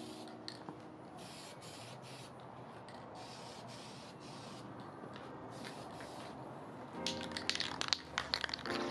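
Aerosol spray can of clear coat hissing in a run of short bursts. About seven seconds in, a dense sharp crackling takes over, and music comes back in near the end.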